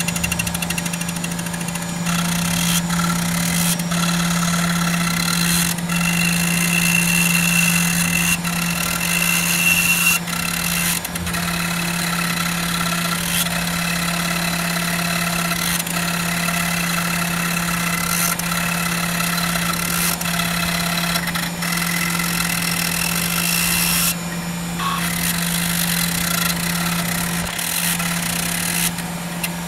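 Tormach 1100MX CNC mill milling aluminum: the spindle runs at a constant speed, giving a steady hum with a higher whine above it, while the end mill cuts and flood coolant sprays. The sound is broken by brief dips every second or two.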